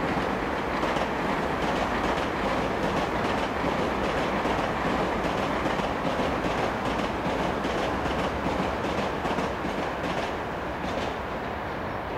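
Express passenger train hauled by an EP2K electric locomotive passing at speed: a steady rumble of wheels on rail with rapid clicks from the rail joints, easing off slightly near the end.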